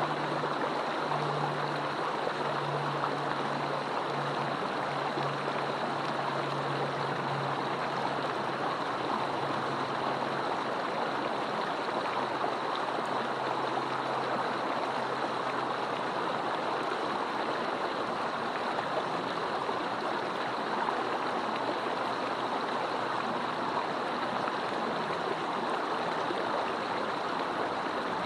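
Mountain stream rushing steadily, an even wash of flowing water. A faint low hum underneath fades out about halfway through.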